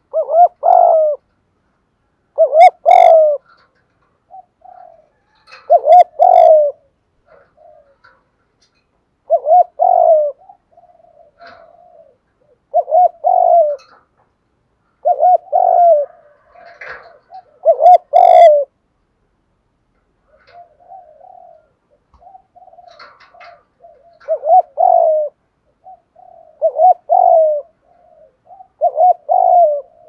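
Spotted dove giving its cooing song: loud phrases of a few coos each, repeated every two to three seconds, with softer coos in between and a quieter spell of several seconds past the middle.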